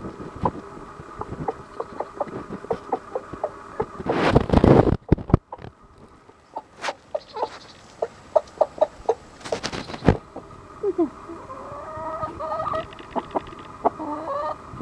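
Chickens (hens and a rooster) clucking while feeding: many short clucks through the middle, then a longer wavering call near the end. Two brief loud rushing bursts come about four seconds in and about ten seconds in.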